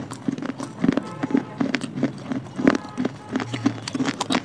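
Close-up crunching of brittle baked clay pieces being bitten and chewed: a fast, irregular run of sharp crunches.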